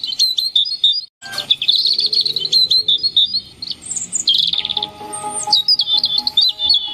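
Many birds chirping and tweeting in quick, dense calls, with soft music coming in underneath after a brief cut-out about a second in and held notes joining at about four and a half seconds.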